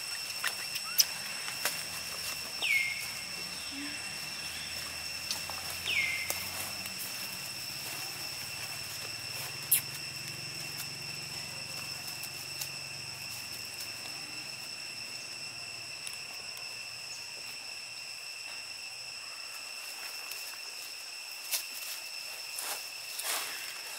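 Outdoor forest ambience: a steady high-pitched insect drone, with two short falling calls about three seconds apart early on and scattered light clicks and rustles, the sharpest about ten seconds in.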